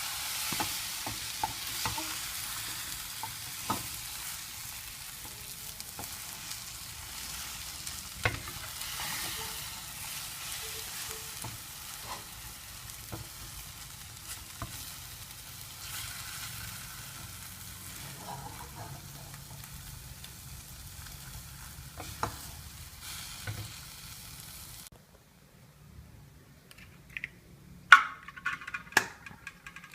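Egg and onion frying in oil in a pan: a steady sizzle with scattered clicks of a utensil working in the pan. The sizzle cuts off suddenly about 25 seconds in, and a few sharp ringing clinks, like metal on a dish, follow near the end.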